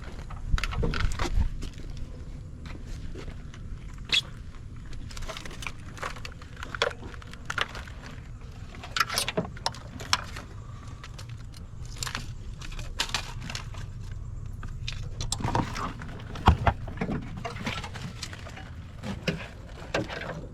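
Scattered clicks, rattles and rustles of plastic harness latches, connectors and wiring being worked loose in a car's engine bay, over a steady low hum.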